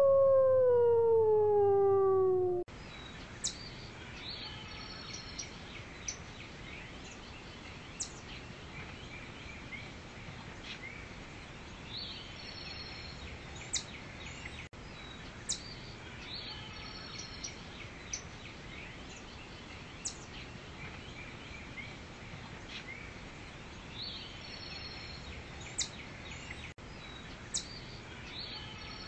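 A wolf howl sliding down in pitch, cut off about two and a half seconds in. After it comes forest ambience: scattered short, high bird chirps over a steady background hiss.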